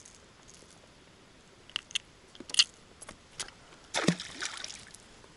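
A few sharp clicks and knocks of handling gear and fish in the boat, then a splash lasting about a second, about four seconds in, as a small fish is dropped back into the river.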